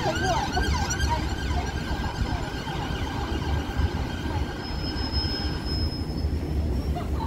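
Busy city road traffic: a steady low rumble from passing buses and other vehicles, with passers-by talking over the first couple of seconds.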